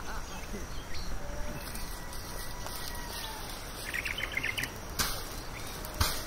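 Outdoor ambience: a steady background hiss with a short, rapid chirping trill about four seconds in and two sharp clicks about a second apart near the end.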